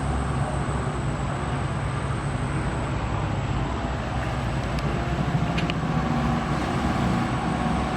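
Dump truck's diesel engine running steadily with a low rumble.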